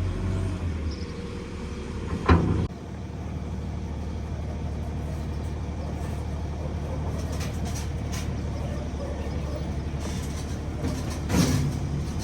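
Motor vehicle running steadily on the road, a low even hum, with a sharp loud knock about two seconds in and a smaller thump near the end.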